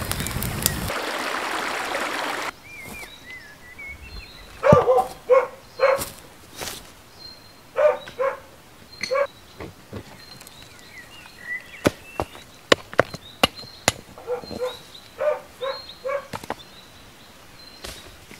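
Campfire crackling and hissing for the first couple of seconds, then flat stone slabs being pried loose and knocked together, sharp clicks and knocks. Through it come short bark-like calls in groups of two to four, and bird chirps.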